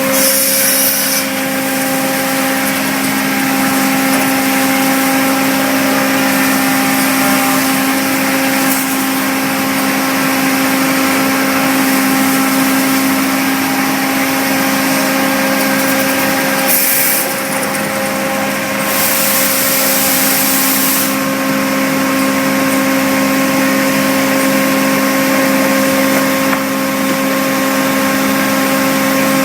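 A CNC woodworking machining centre running, with a steady multi-tone motor whine under a loud high hiss. The hiss drops away for a few seconds just past the middle and then returns.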